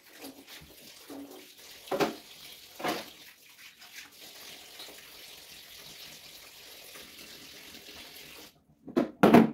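Kitchen tap running into a stainless steel sink while dishes are washed, with a few knocks of dishes against the sink. The water cuts off about eight and a half seconds in, followed by a couple of loud clatters.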